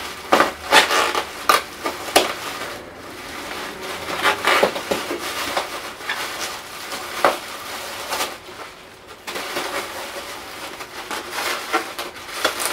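Plastic bubble wrap crinkling and rustling in irregular crackles as it is worked loose and pulled out of a packed 3D printer's frame.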